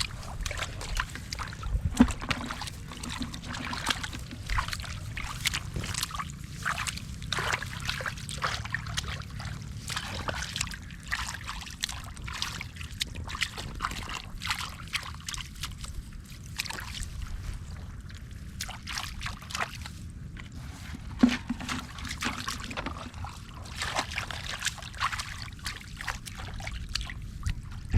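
Water and wet mud sloshing and trickling, with a dense run of small splashes and squelches from hands working in a muddy hole, over a low rumble. There is a louder knock about two seconds in and another about twenty-one seconds in.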